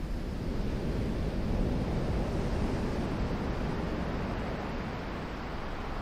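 Ocean surf breaking and washing up a gravel beach, a continuous rushing wash that swells a little about two seconds in.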